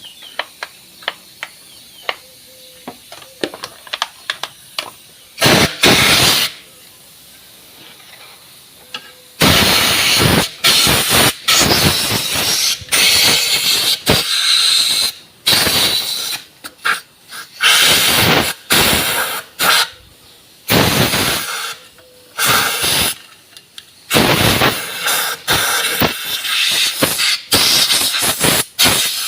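A spray nozzle hissing in repeated blasts, some short and some a second or more long, blowing burnt clutch-plate debris out of a motorcycle engine part; light clicks and taps in the quieter first few seconds.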